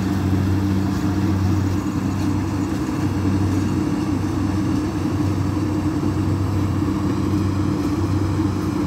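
Kubota DC60 combine harvester running steadily with a low, even drone while it cuts lodged rice.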